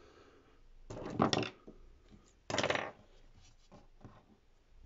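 Hands moving metal scissors and tools on a wooden desk: two short clattering handling noises, about a second in and again about two and a half seconds in.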